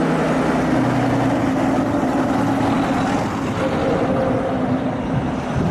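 A bus engine running steadily, with a constant low hum under a noisy rumble.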